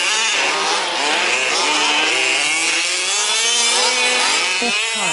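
Several 1/5-scale 4WD RC trucks racing, their small two-stroke petrol engines revving up and down and overlapping into a steady buzzing din.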